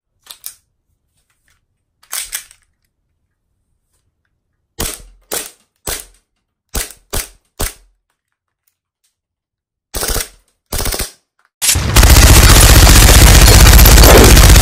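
Slide of a Glock-style airsoft pistol racked by hand several times: a series of sharp clacks, often in quick pairs. Near the end a loud burst of rapid machine-gun fire, a sound effect, takes over.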